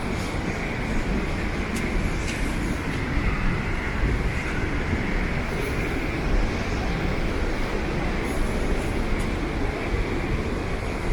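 Steady rushing roar of a river waterfall pouring over a dam.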